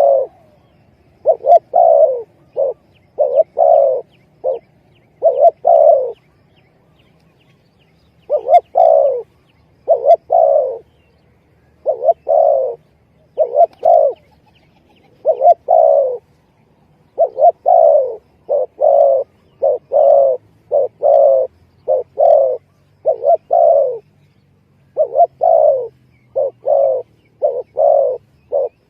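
Spotted dove (tekukur) cooing over and over as a lure call: short phrases of two to four coos, one phrase every second or two, with a brief pause a few seconds in.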